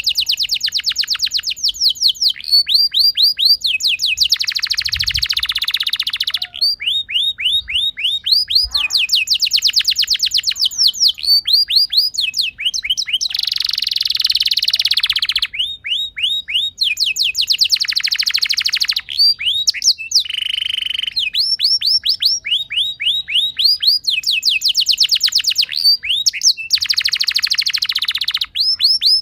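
Domestic canary singing a long, unbroken song of rolls: each phrase is a fast run of identical repeated notes that changes to a new note type every second or two, with a few buzzy, rattling trills between.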